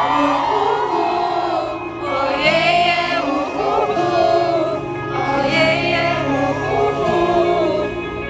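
Live pop singing over a backing track through the concert PA, with sung melody lines over a steady bass.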